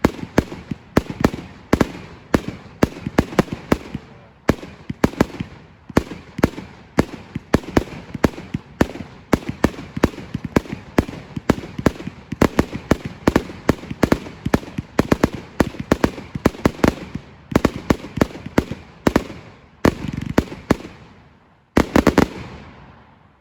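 Fireworks display: a rapid run of loud bangs, several a second, from firework cakes and aerial shells, with echo between them. A last tight cluster of bangs comes near the end, then the echo dies away.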